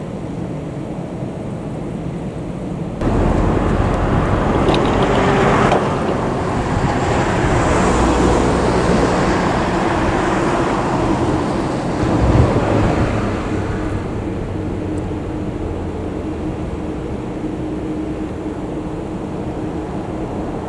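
A vehicle passing: a steady running noise cuts in abruptly about three seconds in, swells through the middle and eases off again.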